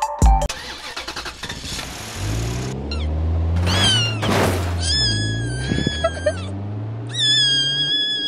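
A car engine starts and runs with a low hum, and over it a cat yowls loudly: first a short falling cry, then two long, held screams.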